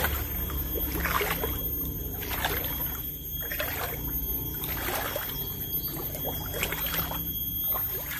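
Water sloshing and swishing as someone wades through a shallow river, in surges about once a second.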